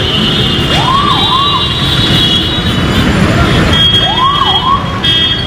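A wailing, siren-like tone that swoops up, dips and rises again before falling, heard twice about three seconds apart, over steady traffic noise.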